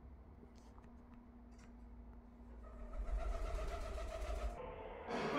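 Low rumble of a vehicle engine running, swelling louder about three seconds in, with a faint steady hum over it.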